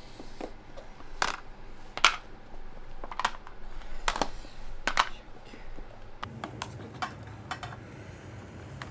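Irregular clicks and light knocks of small hard objects being handled, the sharpest about two and five seconds in, with a low hum coming in about two-thirds of the way through.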